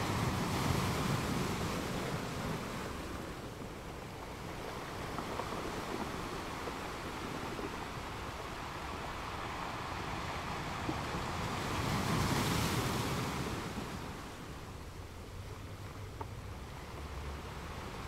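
Ocean waves washing onto a shore: a steady rush of surf, with one wave surging at the start and a bigger one breaking about two-thirds of the way through.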